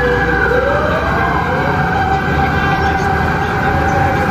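A siren wailing, its pitch slowly rising and falling, over a steady low rumble of background noise.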